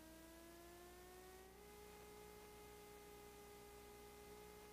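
Grumman Widgeon's engines heard faintly as a steady drone, rising in pitch over the first second and a half or so and then holding level, during a run across the water on the step.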